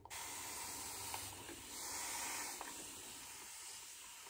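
Shaving brush working soap lather across the face: a steady wet hiss of bristles and foam, a little louder about two seconds in.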